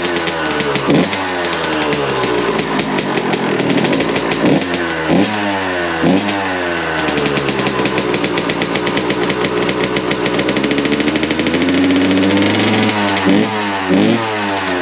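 A 2001 Suzuki RM125's 125cc single-cylinder two-stroke engine running with a freshly repacked exhaust silencer, blipped on the throttle several times: the revs snap up and fall straight back. Between the blips it holds a steadier lower speed, and the sound echoes under a carport.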